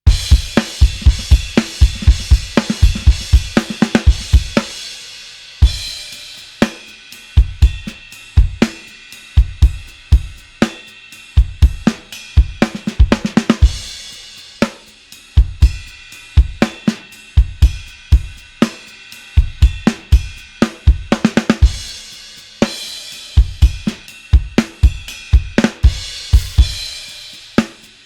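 Rock drum groove played on a virtual drum kit sampled from a vintage 1960s Ludwig kit, with kick, snare, hi-hat and crash cymbals. The groove breaks off briefly about five seconds in and comes back with a cymbal crash.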